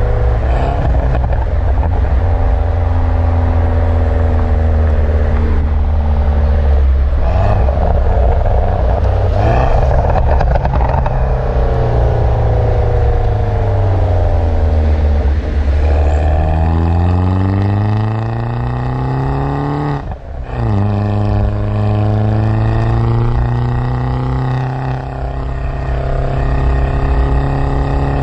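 John Cooper Works Mini's engine and exhaust under spirited driving, the pitch falling off and climbing again with throttle and gears. Past halfway it revs up in one long rising pull, cuts out briefly at a gear change, then picks up at a lower pitch and climbs again.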